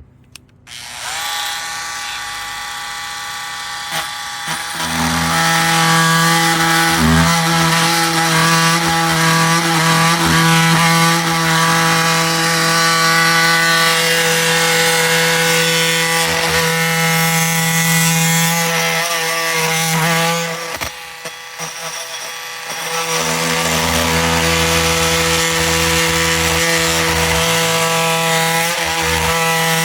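Oscillating multi-tool with a wood flooring blade starting up and running lightly for a few seconds, then buzzing steadily as the blade cuts through half-inch pallet wood. The cut eases off briefly about twenty seconds in, then picks up again.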